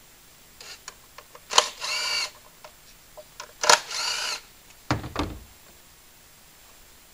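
Ignition coils being pulled from their spark-plug wells on a four-cylinder engine. Twice a sharp click is followed by a short rubbery squeak as the boot slides off the plug, and a dull thump comes about five seconds in.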